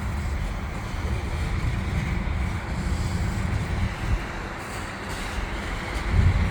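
Freight train cars, gondolas loaded with coil steel, rolling past: a steady low rumble of wheels on the rails, with a few heavier low thumps near the end.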